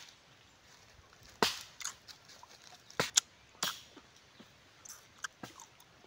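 Close-up mouth sounds of eating tamilok (shipworm) with rice by hand: a few sharp wet smacks and slurps, spaced about a second apart, with quiet between.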